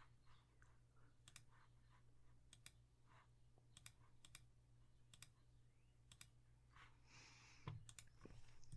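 Faint, scattered clicking from computer use, single sharp clicks every second or so over a low steady hum, with a brief soft rustle about seven seconds in.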